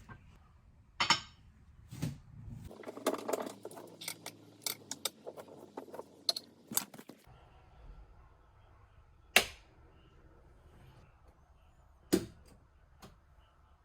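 Objects being handled and set down: scattered clicks, taps and clinks, with a sharp knock about nine seconds in and another about twelve seconds in.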